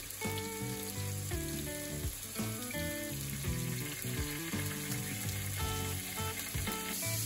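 Ground meat sizzling in hot oil in a frying pan, a steady frying hiss, under background music.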